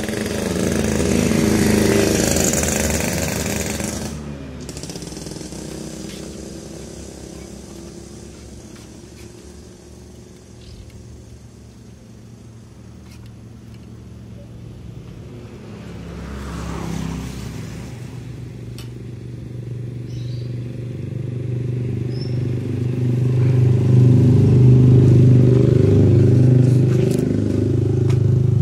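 Road traffic passing close by. One vehicle is loud in the first few seconds and another passes with a quick rise and fall in pitch around the middle. An engine's low hum then grows and runs loudest near the end.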